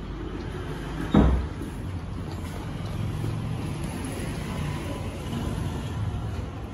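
Shih Tzu puppies eating from stainless-steel bowls on a tile floor, over a low steady rumble. A single sharp thump about a second in is the loudest sound.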